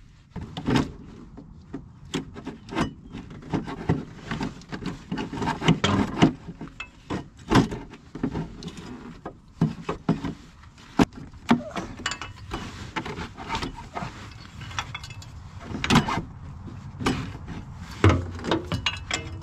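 Irregular knocks, clicks and scraping of hand tools and hard parts being handled and rummaged through, with louder clunks now and then, such as around 6, 7.5, 11, 16 and 18 seconds in.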